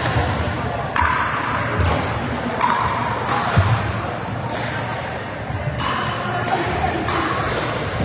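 Pickleball paddles striking a plastic ball in a rally: sharp pocks about once a second, each ringing briefly in a large hall, with a gap of a second or two near the middle, and low thuds under them.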